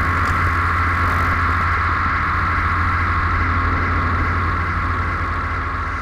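Steady, loud, layered drone from the film's sound design: a low hum under an even, high buzzing band, with no breaks or strokes.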